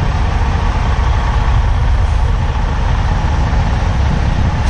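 Semi truck's diesel engine running steadily at low revs, a continuous low rumble, as the tractor-trailer is manoeuvred slowly while backing.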